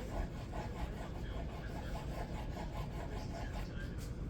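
The edge of a CJRB Acacia's AR-RPM9 steel blade is drawn lightly across a pine tabletop in quick repeated drag cuts, about four scraping strokes a second. This light cutting on soft wood is what rolls the edge over, which the reviewer takes for a bad heat treat.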